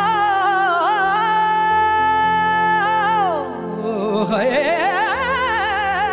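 A man singing a slow devotional melody with heavy vibrato into a microphone, holding one long note that slides downward a little after three seconds in, then picking up wavering ornamented phrases again. Steady sustained accompaniment runs beneath the voice.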